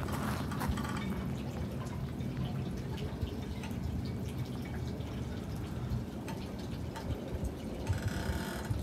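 Water lapping and dripping against the marina pontoons and moored hulls, faint small splashes over a steady low rumble, with a brief brighter patch of sound near the end.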